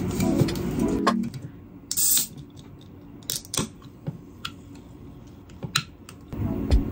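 A 355 ml can of Pepsi being cracked open by its pull tab: a short, sharp pop and fizz of escaping gas about two seconds in, followed by a few light clicks.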